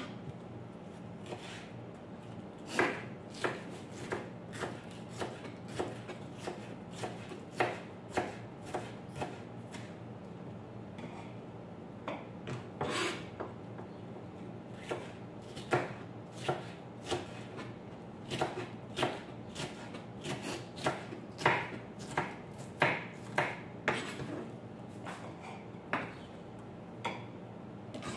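Kitchen knife chopping green bell pepper on a plastic cutting board: irregular sharp knocks of the blade against the board, one or two a second, with short pauses between runs.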